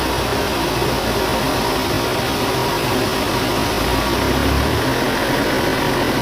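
Engine-driven machinery running steadily, a loud even noise with a low rumble underneath.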